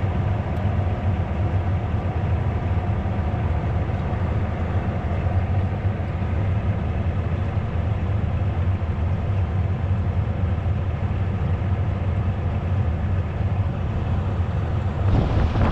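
Heavy harvest machinery with a diesel engine running steadily, a constant low drone without changes in speed. Just before the end a louder rush of noise comes in, like wind on the microphone.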